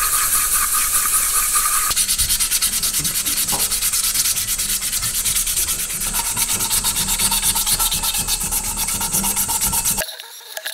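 320-grit waterproof sandpaper scrubbed hard and fast by hand against a wet metal sierra cup, in rapid, even back-and-forth strokes, stopping abruptly about ten seconds in. This is the coarse first stage of polishing the cup's dull surface.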